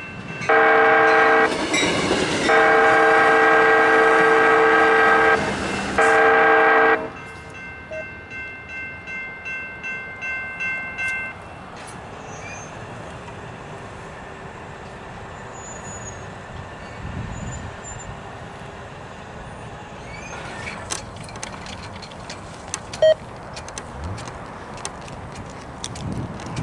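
Amtrak passenger train's horn sounding three loud, multi-tone blasts: a short one, a long one of about three seconds, then another short one. Crossing bells then ring in a pulsing rhythm for a few seconds and stop. A steady rumble follows, with sharp clicks in the last few seconds as the train nears the crossing.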